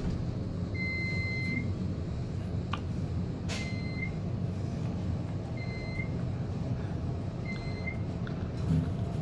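1987 Otis traction elevator travelling down, a steady low rumble of the car in motion, with four single-pitch electronic beeps about two seconds apart as it passes floors; the first beep is longer than the rest.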